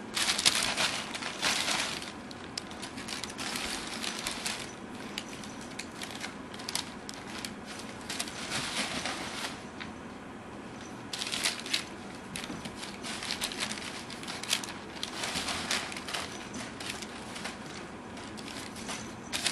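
Crumpled brown kraft packing paper crinkling and rustling in irregular bursts as kittens scramble and burrow through it. The loudest flurries come right at the start and again about eleven seconds in, with a brief lull just before.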